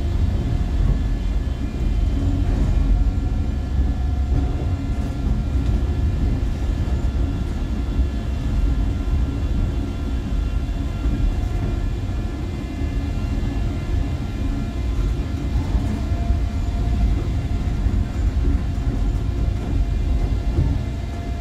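Tatra T6A2 tram running along the line, heard from on board: a steady low rumble of wheels on rails with several faint steady tones above it.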